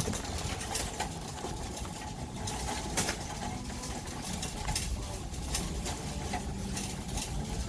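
Grocery store background noise: a steady low rumble with scattered clicks and knocks, the sharpest about three seconds in.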